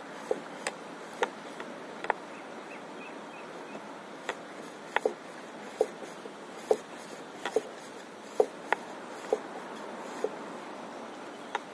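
Small waves lapping against an inflatable paddleboard: short irregular plops and clicks, about one or two a second, over a steady hiss.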